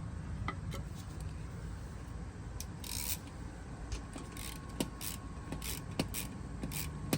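Hand tools working the scooter's oil drain bolt: a run of short rasping strokes with sharp metallic clicks in between, starting about two and a half seconds in, over a low steady rumble.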